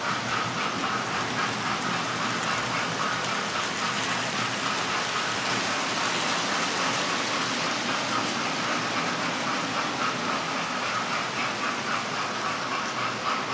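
Model railway trains running on the layout's track: a steady whirring rumble of the locomotives' motors and wheels on the rails, with a light rhythmic ticking.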